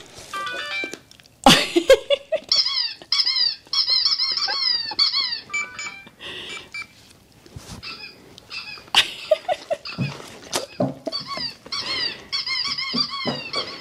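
PetSafe Ricochet electronic dog-toy ball, switched on by its centre button, giving a short run of stepped beeps and then runs of quick, repeated electronic squeaks, about four a second, that stop and start again. The chewed ball still works. Knocks and clicks of the dogs mouthing and nosing the toy come in between.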